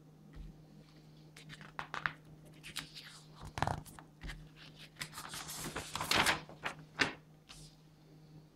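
Folded paper instruction sheet rustling and crackling as hands unfold and flatten it, in a string of crisp crinkles and snaps, busiest a little past the middle.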